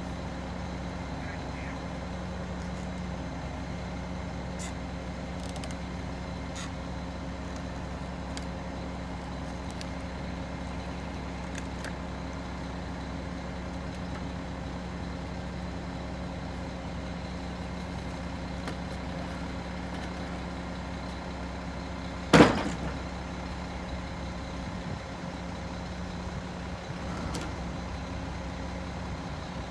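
Mack MR garbage truck's diesel engine idling steadily, with a few light knocks of wooden boards being handled and one loud, sharp clatter of boards about two-thirds of the way in.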